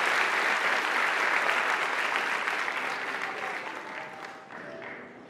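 Audience applauding at the end of a choral performance, a dense even clatter of many hands that fades away over the last two seconds.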